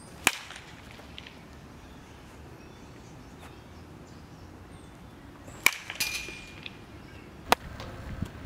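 A baseball bat hitting pitched balls during batting practice: three sharp cracks, one just after the start and two near the end about two seconds apart, the middle one followed by a brief rattling ring. Steady outdoor background noise between the hits.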